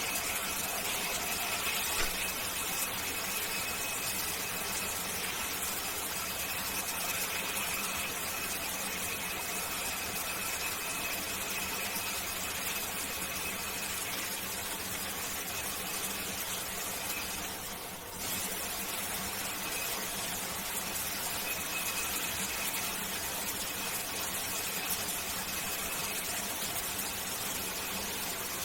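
Shower water spraying steadily, with a faint high whistle that fades in and out and a low hum underneath. The spray briefly dips about 18 seconds in.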